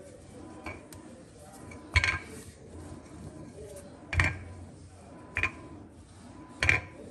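Wooden rolling pin rolling chapati dough on a granite countertop, a soft steady rubbing with four sharp knocks, roughly one every second or so, as the pin strikes the stone.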